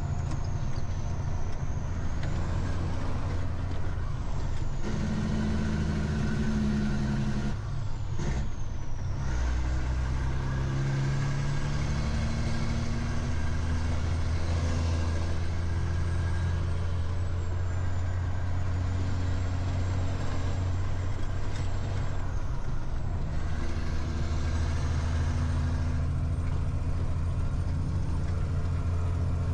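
Semi-trailer truck's diesel engine pulling up a grade under load, heard inside the cab. The engine note climbs, then breaks off briefly about eight seconds in and again near twenty-three seconds, as with gear changes, with a thin high whine above it.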